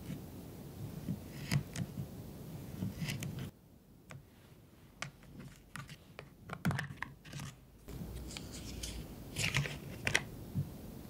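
A knife cutting through soft, microwave-softened kabocha squash, each cut ending in a light tap on the board. From about three and a half seconds in, fingers tap and handle a plastic butter tub, and near the end its foil seal is peeled back with a crinkle.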